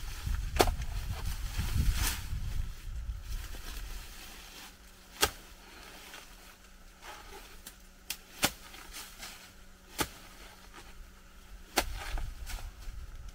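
About six sharp, isolated knocks at uneven intervals, with a low rumble in the first few seconds.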